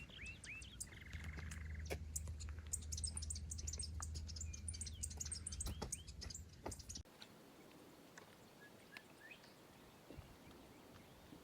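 Wild birds chirping, with many short, quick calls over a low rumble. After about seven seconds the sound drops abruptly to a much quieter background with only a few scattered chirps.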